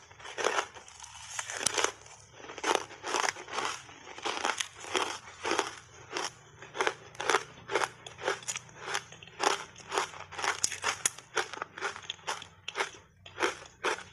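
Close-miked crunching and chewing of ice discs coated in matcha powder: a bite at the start, then a dense run of sharp crunches, about two to three a second.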